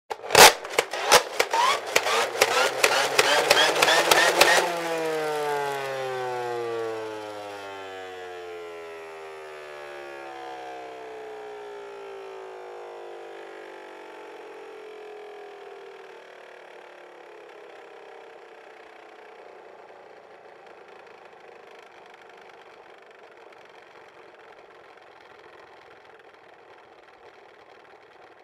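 Toy pistol firing: a fast run of sharp clicks for about four seconds, then a whirring tone that slides slowly down in pitch and fades away.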